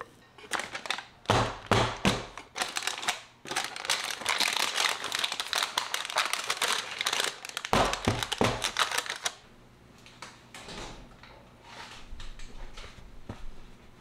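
A parchment-lined cake pan knocked on a countertop several times, then the parchment paper crinkling and rustling for several seconds as the pan is handled, with a few more knocks near the end of the rustling and softer clicks and taps afterwards.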